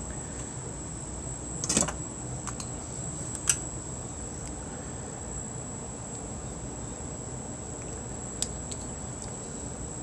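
Power supply wiring harness and connectors being handled: a short rattle about two seconds in, a sharp click about halfway through the first half, and a lighter click near the end, over a steady faint high-pitched whine and low hum.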